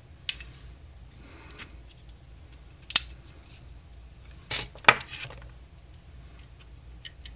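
A few sharp plastic clicks and taps as a small screwdriver prises at the snap tabs of a MINI Cooper R50 climate control panel's plastic housing. The loudest comes in a short cluster about five seconds in.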